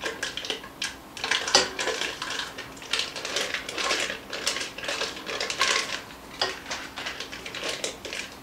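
A spatula scraping and knocking against the inside of a metal saucepan in quick, irregular strokes, working butter off its paper wrapper into the pan.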